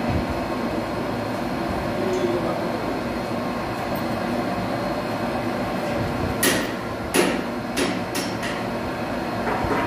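Metal lathe running with a steady hum, with a quick series of sharp metallic knocks and clanks about six seconds in, five within two seconds, and one more near the end.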